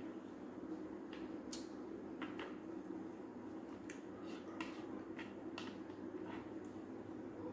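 Metal spoon clinking and scraping against a bowl as it stirs and scoops instant noodles: a dozen or so short, irregular clicks over a steady low background hum.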